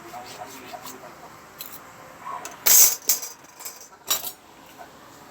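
Metal objects being handled: light clicks, then a loud metallic clatter about two and a half seconds in and another sharp clank just after four seconds.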